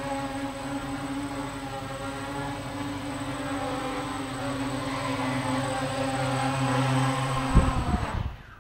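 Mini quadcopter's Hacker A10-15S brushless motors and 5x3-inch GWS propellers buzzing steadily in flight, growing slightly louder. About seven and a half seconds in comes a short knock and rattle as it touches down on the floor, then the sound dies away.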